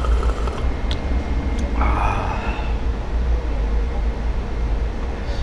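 Steady low rumble of street background noise, with a short slurp of hot broth from a paper cup about two seconds in.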